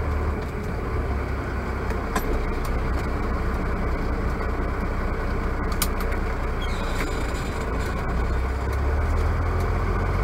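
Semi truck's diesel engine heard from inside the cab, a steady low rumble as the truck rolls slowly at low revs, growing a little louder near the end. A couple of faint clicks.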